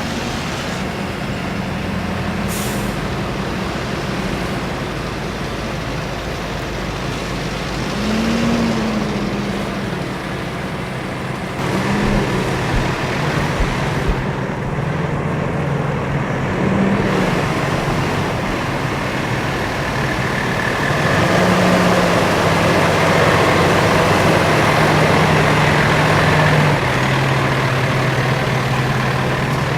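Heavy utility trucks' diesel engines running, the engine note rising and falling several times, with a short hiss about two and a half seconds in.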